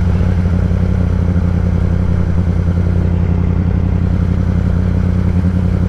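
Kawasaki ZX-10R inline-four engine with a Graves race exhaust, running at a steady, unchanging engine speed.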